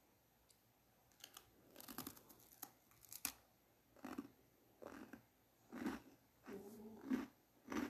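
Close-up eating sounds of a person eating bread. Crisp crackles of the bread being torn and bitten come in the first half. After that comes steady chewing with soft mouth sounds, about one a second.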